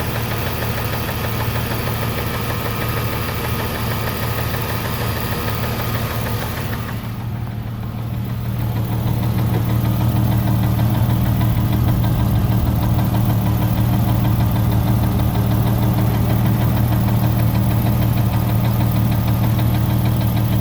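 Jeep Grand Cherokee 4.0-litre inline-six idling with a fast, steady ticking. About seven seconds in the ticking and hiss fall away and a louder low engine hum takes over.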